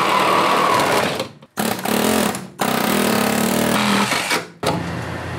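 Cordless reciprocating saw cutting through rusted sheet metal and old sealer in a truck's cowl. It runs loudly in bursts with a few brief stops, and is softer near the end.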